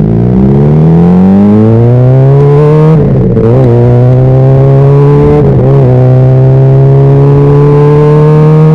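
Honda CBR600RR's inline-four engine pulling under throttle while riding. The revs climb for about three seconds, break briefly twice (once about three seconds in, again a little past five), then hold fairly steady with a slow rise.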